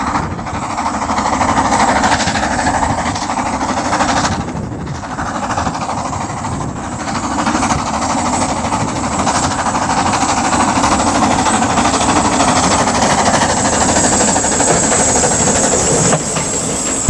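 Small narrow-gauge Andrew Barclay steam tank locomotive running along the line with its carriages: a steady, loud mix of the engine working and wheels on the rails, over a heavy low rumble.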